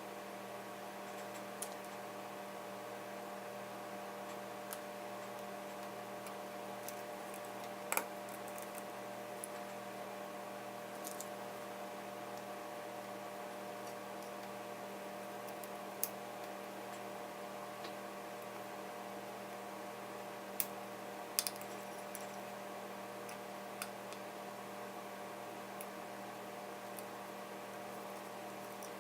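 Steady electrical hum with a few faint, sharp, scattered clicks from small tools and parts being handled during the laptop repair.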